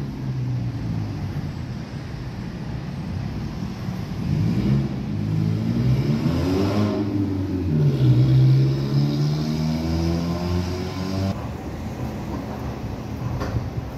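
Metro train's electric traction motors whining, their pitch gliding up and then down around the middle, over a steady low hum.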